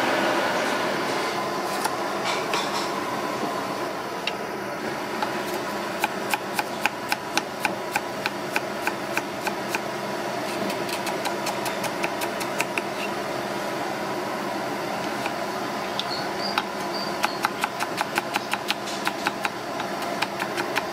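Knife chopping shallots and garlic on a wooden cutting board: quick, even taps about three or four a second, in two long runs, over a steady background hiss.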